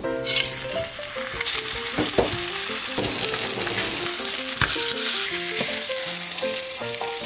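Oil sizzling loudly in a frying pan as flour-dusted hairtail and silver pomfret pan-fry. The sizzle starts suddenly as the fish goes into the hot oil, and there are a couple of light knocks partway through.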